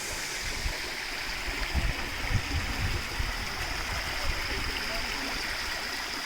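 Water of a waterfall and stream rushing steadily, with a few brief low bumps.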